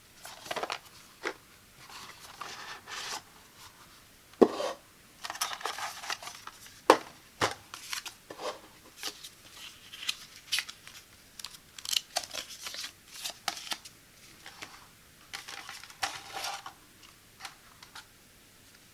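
Product packaging being opened and handled by hand at close range: a string of sharp clicks and taps mixed with short bursts of tearing and crinkling of cardboard and plastic.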